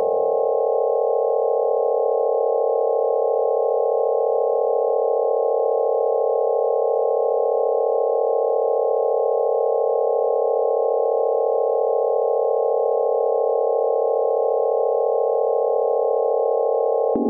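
Electronic drone from a Max MSP patch: several pure sine tones held together as one unchanging chord. It switches suddenly to a lower chord at the very end.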